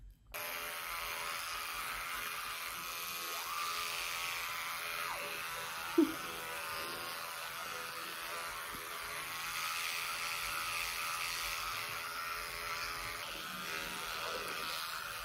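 Round-headed electric toothbrush switched on just after the start, then buzzing steadily as it brushes teeth. A single sharp tap about six seconds in.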